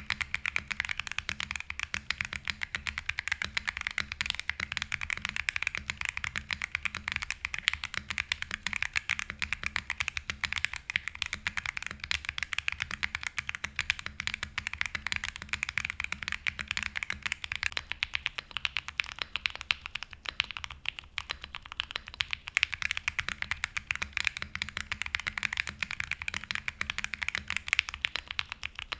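Continuous fast typing on a mechanical keyboard with tactile switches in a POM plate: Akko Creamy Purple Pro switches, with Gateron Quinn switches taking over about two-thirds of the way in. A rapid, steady stream of key clacks over a deeper low thud.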